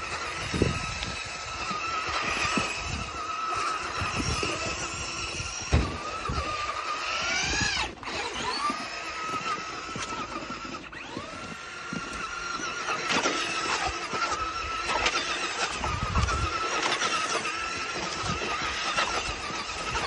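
Traxxas Rustler RC truck's electric motor and gears whining as it spins through snow. The pitch climbs sharply with throttle about seven seconds in, drops off, then rises again and holds. A few dull thumps are heard along with it.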